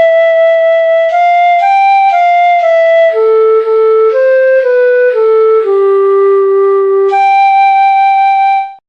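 Music: a slow solo melody played one note at a time, ending on a long held note that cuts off just before the end.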